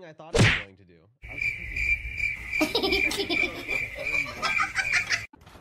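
Crickets chirping in a steady, pulsing high trill for about four seconds, stopping suddenly near the end. A brief sharp burst of noise comes just before it.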